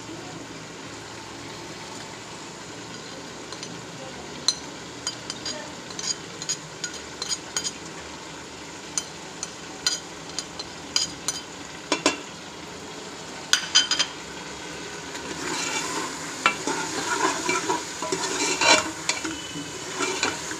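A metal spoon clicking and scraping against a plate as red chilli and turmeric powder are scraped off, followed from about three quarters of the way in by the spoon stirring and scraping meat and taro in a metal pot over a louder frying sizzle as the spices hit the hot oil.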